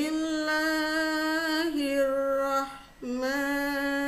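A woman's voice chanting a Quran recitation in a melodic, drawn-out style, holding long notes that step down in pitch, with a short break about three seconds in before another long held note.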